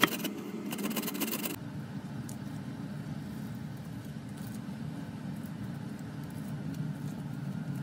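A tomato rubbed on a metal box grater: quick, rhythmic rasping strokes that stop suddenly about a second and a half in. After that there is a steady low rumble with a few faint ticks.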